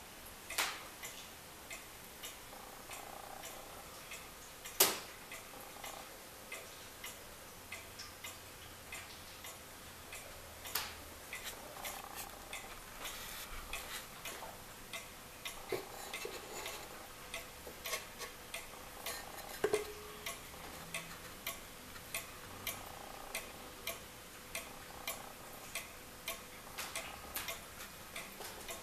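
Warmink wall clock's weight-driven pendulum movement ticking steadily, with a few louder clicks mixed in, the loudest about five seconds in.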